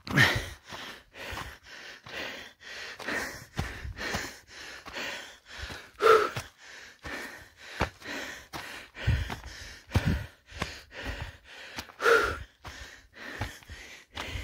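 A person breathing hard and gasping while climbing a steep, rocky path under a load of water, with footsteps on loose stone and gravel about two a second. Three louder gasping breaths stand out, at the start, about halfway through and near the end.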